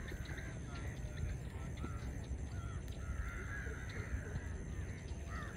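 Crows cawing repeatedly in short arched calls, over a steady low rumble.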